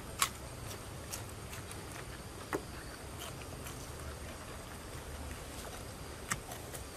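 A bite into raw palm heart, with a sharp crisp click about a quarter second in, then chewing with a few faint clicks over a quiet steady hiss.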